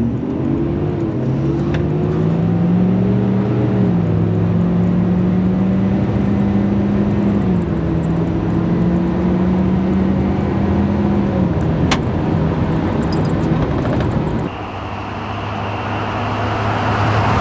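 2013 Ford 6.7 Power Stroke V8 turbo-diesel, fitted with a larger 2015–16-style turbo and a 100 horsepower tune, pulling hard at full throttle. The engine note climbs and drops back three times as the automatic transmission upshifts, and about fourteen seconds in it falls lower and quieter as the throttle eases.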